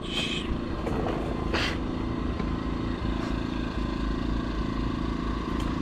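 A motor running steadily with an even drone, with a brief hiss at the very start and a short burst of noise about a second and a half in.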